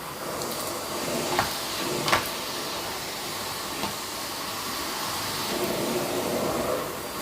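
Vacuum cleaner running steadily, with two short sharp knocks about a second and a half and two seconds in.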